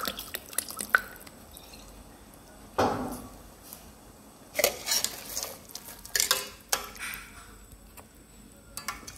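Kitchen utensils and dishes clattering: scattered clinks and knocks, with a few louder scrapes and bangs about three, five and six and a half seconds in.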